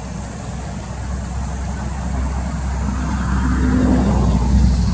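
A motor vehicle passing by, its low engine sound growing louder to a peak near the end.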